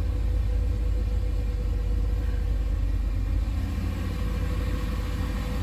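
Turbocharged 6.0-litre LS V8 idling steadily in neutral on its initial Holley Terminator X-Max setup, a steady low rumble heard from inside the car, with a thin steady hum over it.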